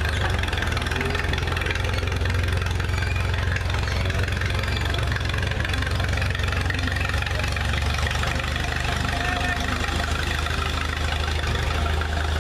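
Vintage farm tractor's engine running at a low, steady speed as the tractor is driven slowly.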